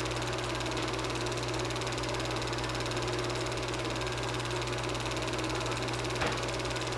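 Super 8 film projector running: a steady motor hum under a fast, even clatter from the film mechanism, with one sharper click about six seconds in.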